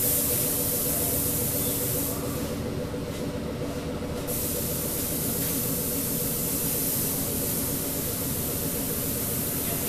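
Gravity-feed paint spray gun hissing as compressed air atomises paint onto a car body panel. The hiss stops for about two seconds near the middle as the trigger is let go, then starts again. A steady low mechanical hum runs underneath.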